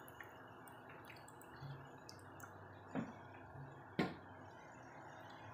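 Faint drips of thick coconut milk trickling from a plastic jug into a wok, with two soft taps about three and four seconds in.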